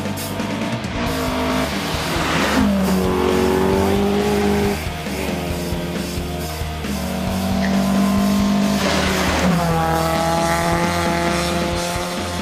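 Rally cars passing at speed on a gravel stage, twice, about two and nine seconds in. Each engine is loud as it goes by, then drops in pitch, with a rush of tyre and gravel noise. Background music plays underneath.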